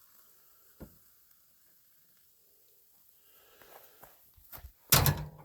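Handling noises from making instant coffee at camp: a single click about a second in, light clinks and rustles later, then a short, loud clatter near the end.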